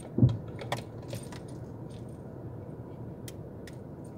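Car door opened with a single low thump near the start, followed by scattered light clicks and jingling rattles.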